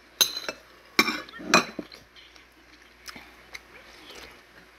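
Metal spoon clinking and scraping against a soup bowl while eating: three sharp clinks in the first two seconds, then two fainter taps a little after the middle.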